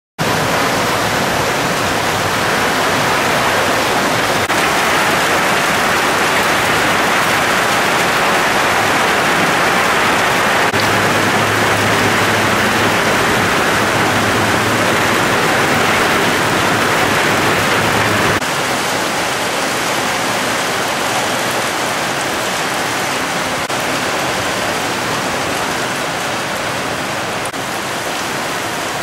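Heavy rain pouring down in a steady, dense hiss. The sound steps down slightly in level about two-thirds of the way through.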